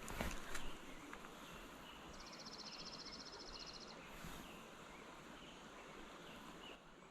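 Steady creek-side water noise, with a high, fast trill lasting about two seconds in the middle and a few light knocks near the start.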